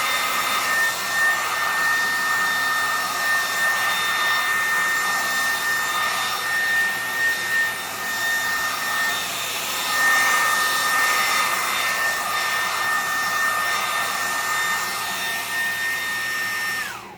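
Handheld hairdryer blowing steadily with a high motor whine, its airflow level rising and dipping as it is moved, then switched off near the end, the whine falling as the motor spins down.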